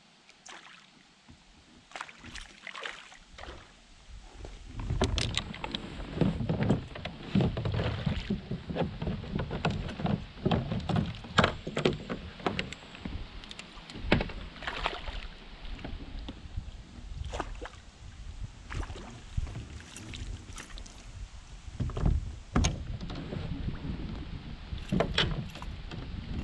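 Splashing water with sharp knocks and rattles against a plastic fishing kayak as a hooked chain pickerel is played alongside and scooped into a landing net. It starts a few seconds in and goes on as a dense string of knocks and splashes.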